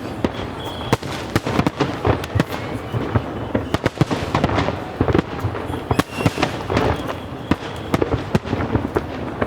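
A fireworks display: many shells bursting in quick, irregular succession, several bangs a second, over continuous crackling.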